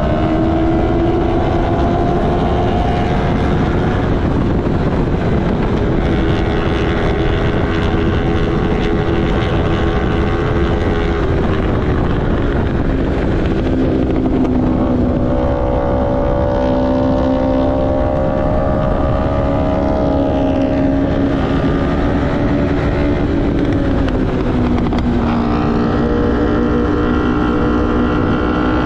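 Racing sport motorcycle engine running hard at high revs, with wind rushing on the microphone. Its pitch dips about halfway through and again near the end as the rider rolls off for corners, then climbs again under throttle.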